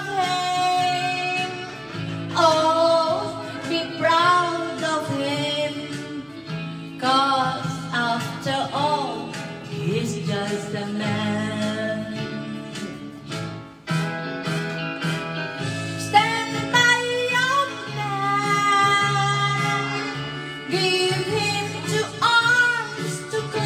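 A woman singing karaoke into a handheld microphone over a recorded backing track.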